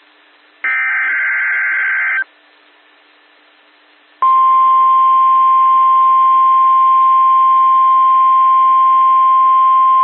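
NOAA Weather Radio emergency alert: a short burst of warbling digital SAME header data tones, a pause with faint radio hiss, then about four seconds in the loud, steady 1050 Hz Warning Alarm Tone starts, which signals that a warning is about to be broadcast.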